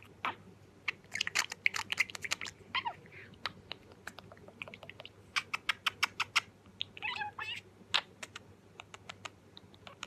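Budgerigar chattering: rapid dry clicks mixed with short warbling chirps.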